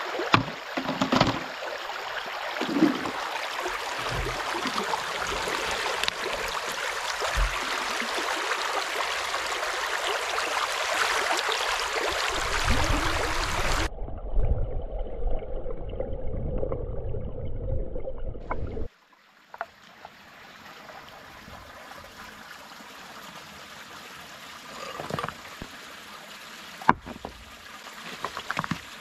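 Shallow stream water rushing and splashing close by as a plastic bottle trap is held in the current. About halfway through it changes to a muffled low rumble heard underwater. Then a quieter steady stream trickle follows, with a few sharp knocks and one loud click near the end.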